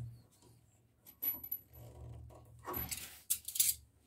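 Light metallic clinks and rattles of plumber's pliers and braided steel flexible hoses being handled against chrome angle valves, with a brief bright ring a little after one second and a short cluster of clinks about three seconds in.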